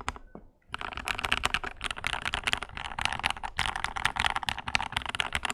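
Fast, continuous typing on a modded Lychee G80 mechanical keyboard with JWK Black linear switches, a quick run of clicking keystrokes. A few scattered keystrokes come first, the dense typing starts under a second in, and it cuts off right at the end.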